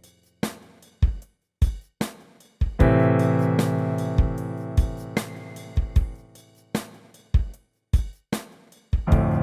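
A short instrumental jingle from a Yamaha PSR-E463 arranger keyboard: a drum-kit beat of kick and snare hits, with a held keyboard chord coming in about three seconds in and slowly fading, and another chord struck near the end.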